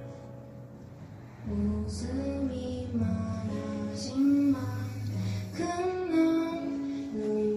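A woman singing live to guitar accompaniment. After a soft instrumental stretch, her voice comes in about a second and a half in.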